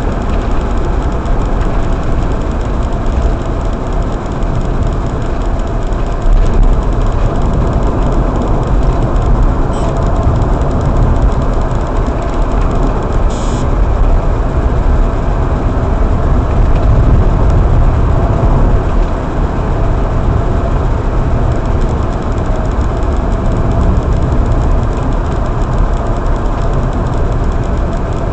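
Steady road noise of a car being driven, heard from inside the cabin: a continuous low rumble of engine and tyres on the road.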